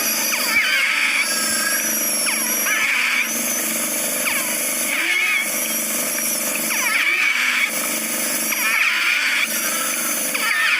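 An infant with severe bronchoalveolitis breathing with difficulty, each breath carrying high-pitched whistling wheezes from narrowed small airways. The breaths recur every couple of seconds over a steady hum.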